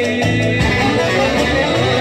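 Loud amplified live music with guitar strumming prominent, a brief instrumental stretch between a woman singer's vocal lines.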